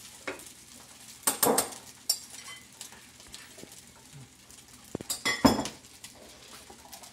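Kitchen utensils clinking and knocking against ceramic bowls and dishes, in two short clusters: about a second and a half in, and again about five seconds in.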